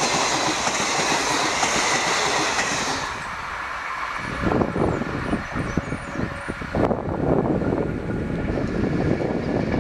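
Passenger train coaches running past on the track with a loud rushing and rattling noise, which drops away about three seconds in as the train clears. After that only irregular low buffeting noise remains.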